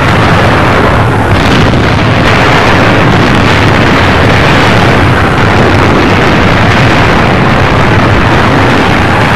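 Battle sound effects: a loud, unbroken rumble of explosions with no separate blasts standing out.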